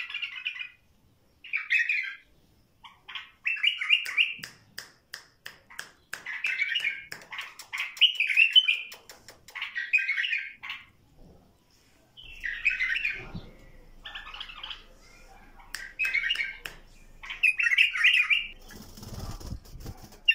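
A caged white-eared bulbul giving short bursts of chirping calls, about a dozen, each about half a second long. Between the calls come rapid runs of sharp ticks and wing flutters as the bird flips and moves about the cage.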